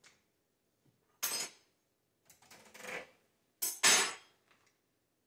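Three short clattering knocks and scrapes of a jerky gun, butter knife and plastic dehydrator tray being handled, the last the loudest.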